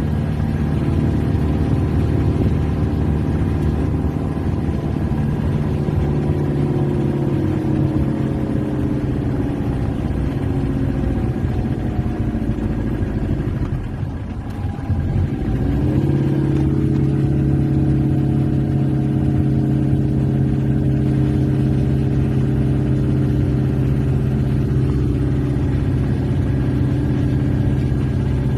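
Peugeot XD3 four-cylinder diesel engine of a Peugeot 404 pickup running at steady road speed, heard from inside the cab. About halfway through the revs fall away and the sound dips for a couple of seconds, then it settles back to steady running.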